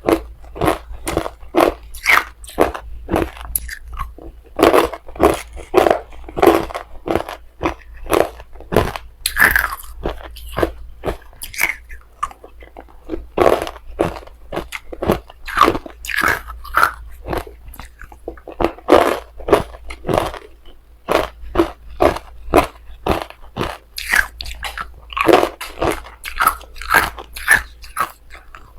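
Hard ice being bitten and chewed close to the microphone: a steady run of sharp, loud crunches, about two to three a second.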